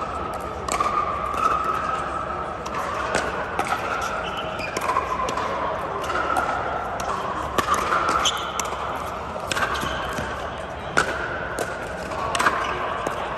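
Pickleball paddles striking the hard plastic ball and the ball bouncing on the court: sharp, irregular pocks that echo in a large hall, over a steady murmur of distant voices.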